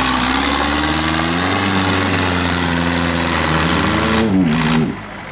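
Small homemade tractor's exposed engine running under load in deep mud, its pitch rising and falling as the throttle is worked. Near the end the engine sound drops off abruptly to a quieter level.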